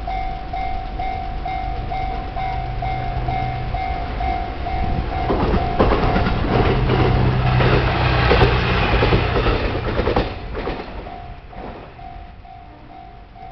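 Japanese level-crossing warning bell ringing in a steady fast pulse while a diesel railcar passes over the crossing. Its engine hum builds from a few seconds in, and the wheels clatter over the rails, loudest from about five to ten seconds in, then fading away as the bell keeps ringing.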